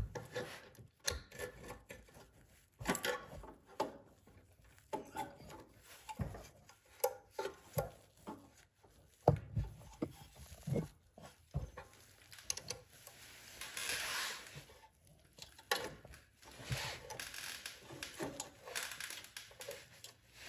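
Snowblower carburetor being handled and fitted by hand onto the engine's intake: scattered light clicks and taps of metal parts, with stretches of rustling and rubbing about two-thirds of the way in and again near the end.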